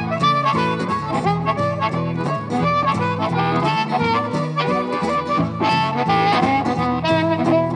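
Blues harmonica solo, the harmonica cupped with a handheld microphone, over acoustic guitar keeping a steady, repeating rhythm in the low notes.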